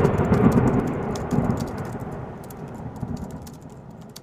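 Logo-intro sound effect: a crackling, rumbling noise, like thunder and rain, that hits suddenly just before and fades away over a few seconds.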